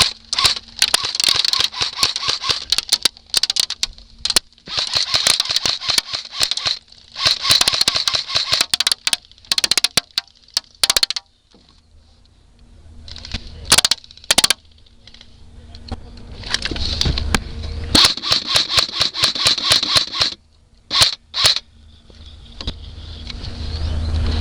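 Airsoft gun firing long full-auto bursts of rapid clicks, several in a row with a few single shots between them, laid down as suppressive fire to keep opponents' heads down.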